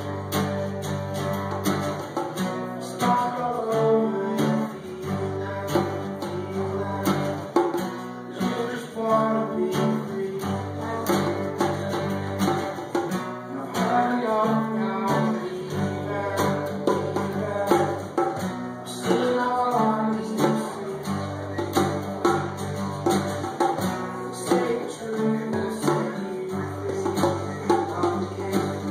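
Two acoustic guitars, one strumming rhythm and one playing lead, with a man singing over them.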